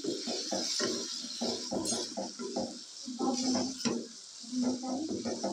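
A wooden spatula stirring and scraping chicken pieces around a nonstick wok, a quick run of knocks and scrapes, several a second. Salt is being mixed in while the chicken is fried down.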